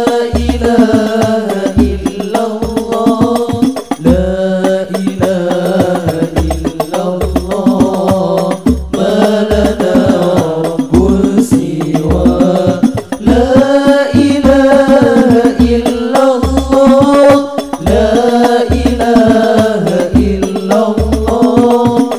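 Arabic devotional song: a singing voice carries a long, ornamented melody over a steady, heavy bass-drum beat.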